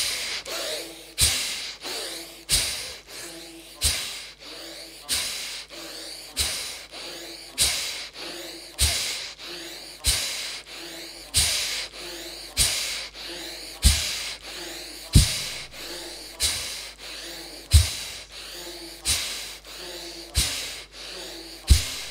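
A person's forceful, rhythmic pranayama breathing close to the microphone: about eighteen sharp puffs of breath, one every 1.3 seconds or so, each dying away quickly, a few with a low thump.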